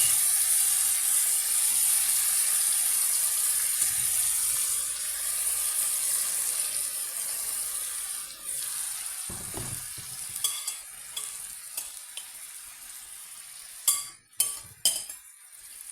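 Small shrimps frying in melted butter in a pan, a loud sizzle that gradually dies down. Near the end, a few sharp knocks of a utensil against the pan.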